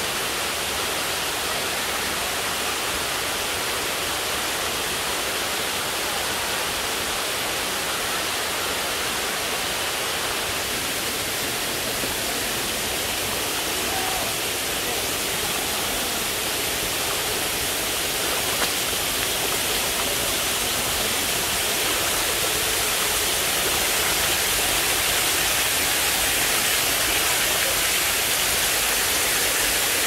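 Waterfall rushing: a steady, even wash of falling water, growing slightly louder over the last third.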